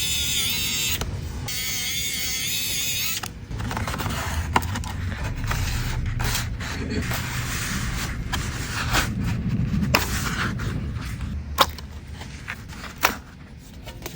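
Hand tools working on a laptop: creaking and scraping, with a squeaky wavering sound for the first few seconds and scattered sharp clicks after that.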